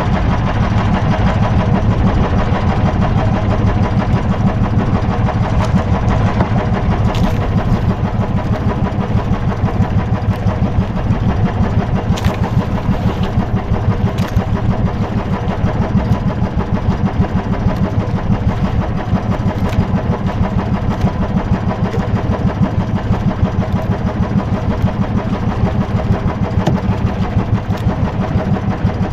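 A small boat engine idling steadily, with a fast, even pulse.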